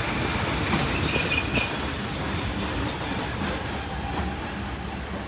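Hitachi RHN diesel railcar running, its steel wheels squealing against the rails. A high steady squeal starts about a second in and fades out about halfway, over the rumble of the moving train.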